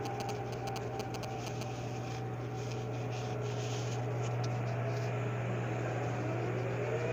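Floating crane machinery running with a steady low hum, with light clicks in the first couple of seconds. Near the end a whine rises in pitch and levels off.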